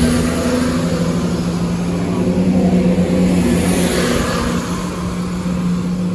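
CrossCountry Class 170 Turbostar diesel multiple unit moving past along the platform, its underfloor diesel engines running with a steady drone over the noise of the moving train.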